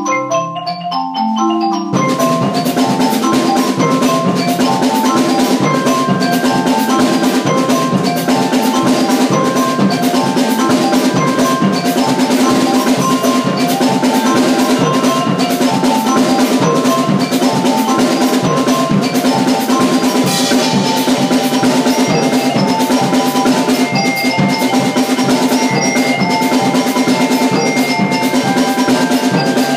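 Percussion ensemble playing a rock tune: marimba and other mallet keyboards over a drum kit. A few mallet notes sound alone at first, then the full band with drums comes in about two seconds in and plays on steadily.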